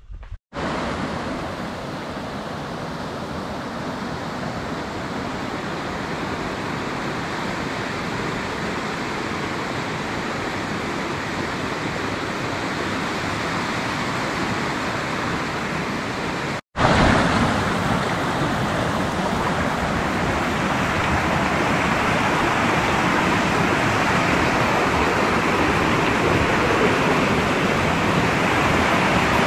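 Fast-flowing forest stream rushing over rocks: a steady, loud rush of white water. It cuts out for a moment twice, just after the start and about 17 seconds in, and is louder after the second break.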